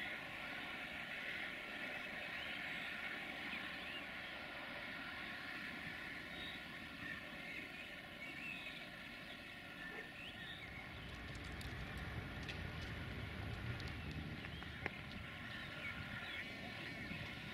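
DH2 'Wadloper' diesel railcar approaching and passing close, its low running rumble swelling from about ten seconds in and fading near the end. A few sharp wheel clicks over rail joints come as it passes.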